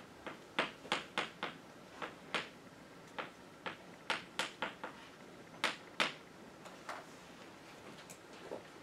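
Chalk writing on a blackboard: a string of sharp, irregular taps and short scratches as letters are written by hand. They come thickly for about six seconds, then thin out to a few scattered taps.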